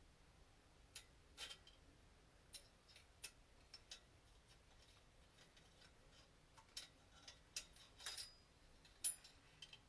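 Faint, irregular metallic clicks and taps from a magnetic pickup tool being worked inside an aluminium Subaru FA20 engine block to fish out a loose part, with the sharpest click about nine seconds in.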